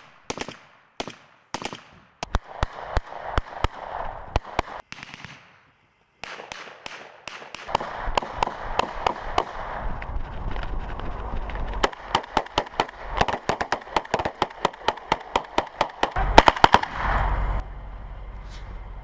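Gunfire: scattered single shots at first, then long runs of rapid shots fired in quick succession, with a brief break about five seconds in.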